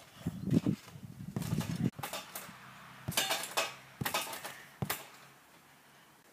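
Backyard trampoline in use: dull thuds of the mat for about the first two seconds, then several sharp metallic clatters of the springs as a child lands and tumbles, three to five seconds in.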